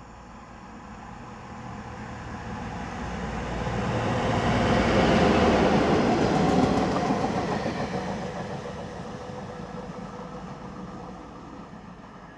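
SM42 diesel shunting locomotive hauling a track profiler and a tamping machine passes by. The engine and the wheels on the rails grow louder, are loudest about five to seven seconds in, then fade as the train moves away.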